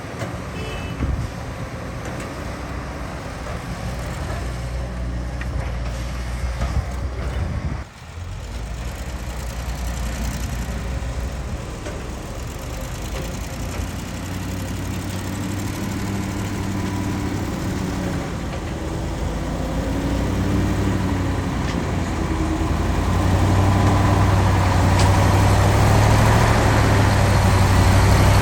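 Heavy diesel engine of earthmoving machinery running steadily, with a brief break about eight seconds in, then working harder and growing louder toward the end.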